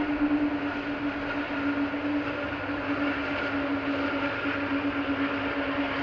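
Jet engines of a Boeing 737-500 (CFM56-3 turbofans) running steadily on the runway before the takeoff roll: a constant whine over a broad rush.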